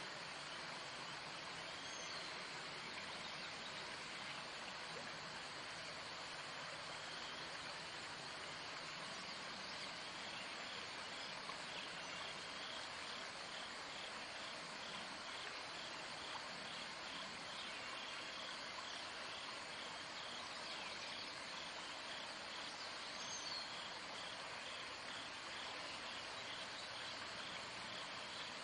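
Faint, steady outdoor background hiss at a pond, with a faint high chirp repeating evenly from about a third of the way in.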